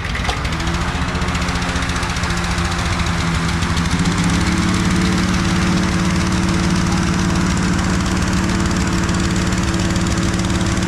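Gasoline-engine balloon inflator fan running, its small engine and fan blades blowing air into the envelope to cold-inflate it. About four seconds in, the engine is throttled up to a higher speed and then holds there steadily.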